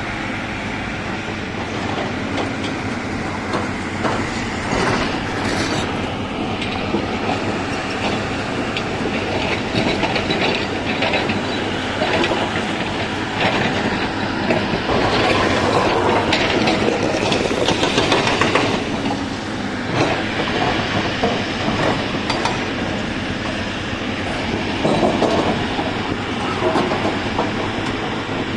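Hyundai tracked excavator's diesel engine running under load while its bucket shifts broken stone, with rocks clattering, knocking and scraping throughout. The clatter is busiest about halfway through.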